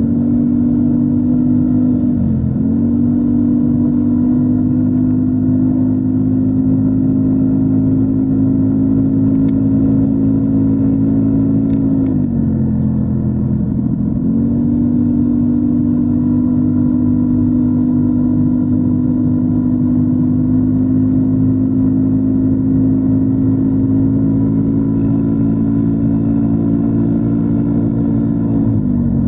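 Yamaha NMAX 155 scooter's single-cylinder engine, fitted with a DS4 Daeng Sai4 aftermarket exhaust, running at steady revs under way. The revs dip briefly and come back about two seconds in, again for a couple of seconds around the middle, and once more near the end.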